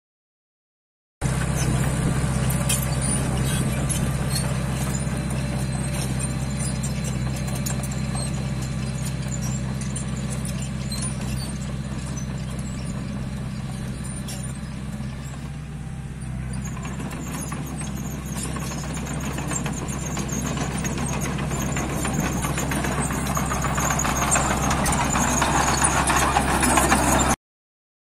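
Komatsu D20P crawler dozer working: its diesel engine runs steadily under the clatter of the steel tracks. The sound grows fainter around the middle and louder again near the end.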